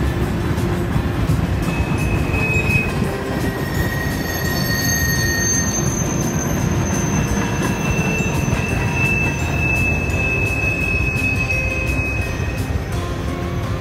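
Freight train rolling past, its empty centerbeam flatcars making a steady rumble with clicking wheels. Several drawn-out high-pitched wheel squeals come and go, the longest near the end.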